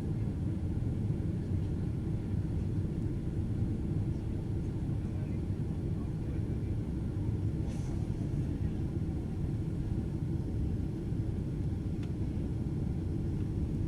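Steady low rumble of engine and airflow noise inside a Boeing 767-400 airliner's cabin.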